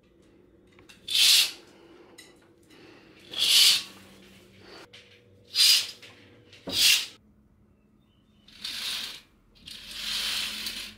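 Fabric curtains being drawn open along their rails: a run of six swishing sweeps about one to two seconds apart, with a sharp click near the middle. The last two sweeps are longer and softer.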